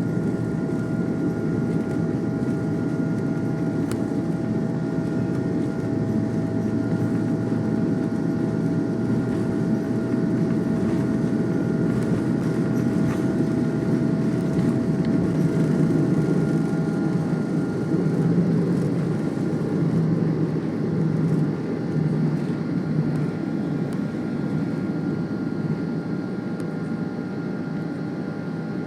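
Cabin noise of an Airbus A330-243 on takeoff, heard from the front row: the steady roar of its Rolls-Royce Trent 700 engines and rushing air, with several steady whining tones above it. The roar swells slightly toward the middle and eases near the end, and one of the tones fades out about two-thirds of the way through.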